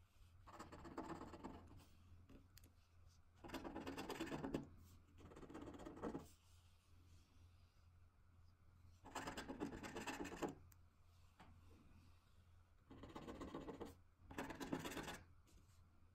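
Swisslos Bingo Lotto scratch card being scratched with a small yellow disc, the coating scraped off in about six separate bursts of dry scraping, each a second or so long, with short pauses between.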